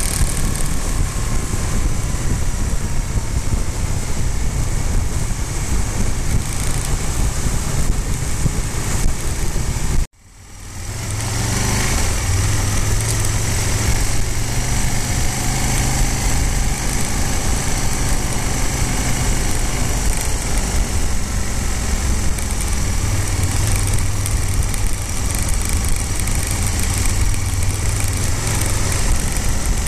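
Motorcycle engine running at road speed, heard from the bike itself with wind rushing over the microphone. About ten seconds in the sound cuts out abruptly and fades back in, then the engine carries on with a steadier low hum.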